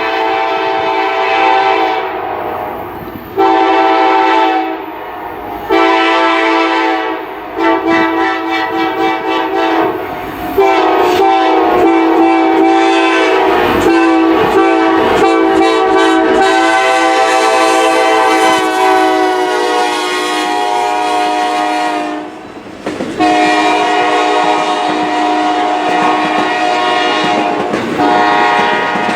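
Multi-chime locomotive air horn sounding a chord in a series of blasts: several short blasts, then one held for over ten seconds, then another long blast near the end.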